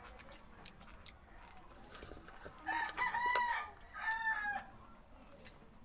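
A rooster crowing once: a long, high call in parts, about three seconds in.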